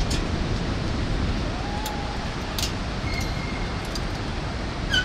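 Steady rushing wind buffeting the microphone during a bungee free fall, with a short high-pitched call right at the end.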